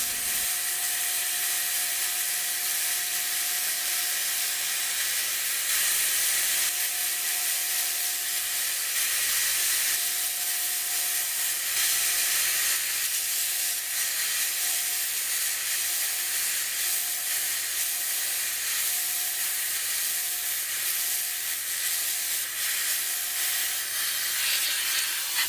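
Small metal-working lathe running while its cross-slide tool cuts steps into a spinning wood blank. The cut makes a steady hiss, with a thin steady whine from the machine underneath.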